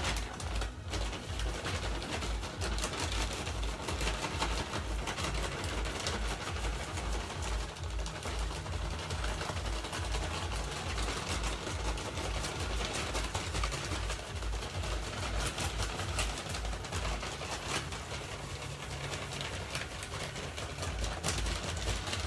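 Seed-starting soil poured from a plastic bag over seeds in a plastic crate: the bag crinkles and the soil trickles and rustles steadily. A low, regular pulse of about two to three beats a second runs underneath.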